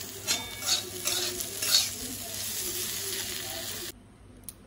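Chopped okra sizzling as it fries in a metal kadhai, with a metal spatula scraping and stirring it in a few strokes. About four seconds in the sound cuts off suddenly to a much quieter stretch.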